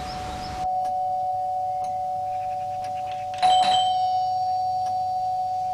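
A steady two-note tone held throughout, with a sudden bright bell-like ping about three and a half seconds in that rings on briefly.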